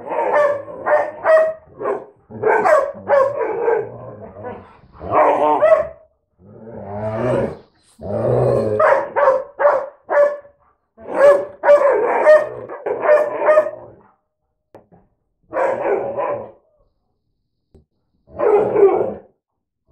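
Two dogs, a retriever-Lab mix and a husky-Lab mix, 'talking' to each other: a fast back-and-forth of barks and howling calls mixed with low growls. The calls thin out to two single calls in the last few seconds.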